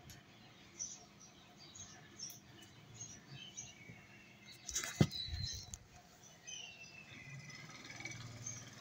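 Small birds chirping in the background, with soft scraping of food being served and one sharp knock about five seconds in, as the serving spoon strikes the pan.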